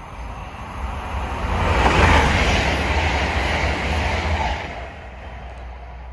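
TransPennine Express Class 802 passenger train passing at speed: a rush of wheel and air noise that builds about a second in, peaks around two seconds in and fades away at about five seconds, over a steady low rumble.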